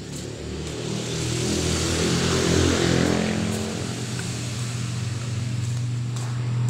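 An engine running, getting louder over the first couple of seconds and then settling into a steady low hum.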